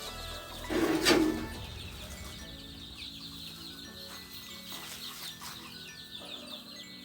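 Sonali chickens peeping and clucking over background music, with many short high chirps throughout and one brief loud burst about a second in.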